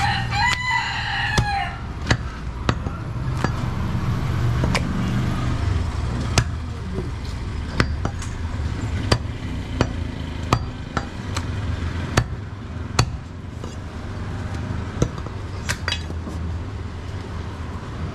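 A rooster crows once at the start. Then a heavy butcher's cleaver chops goat meat on a wooden chopping block in sharp, irregular strikes, roughly one a second, over a steady low rumble.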